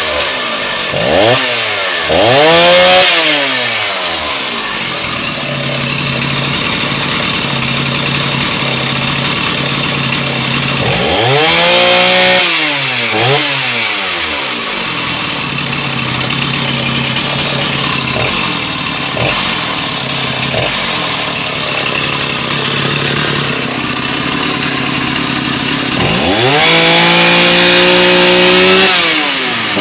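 Blitz 501 two-stroke chainsaw idling with its throttle blipped: two quick revs in the first few seconds, two more about eleven to thirteen seconds in, and a longer held rev near the end before it drops back to idle.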